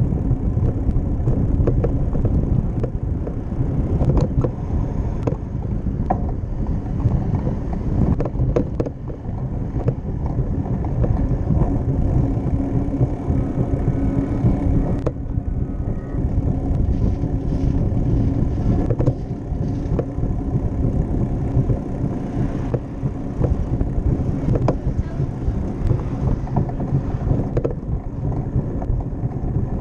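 Riding noise picked up by a bicycle-mounted camera: a steady low rumble of wind over the microphone and tyres on concrete sidewalk, with scattered clicks and rattles from the bike.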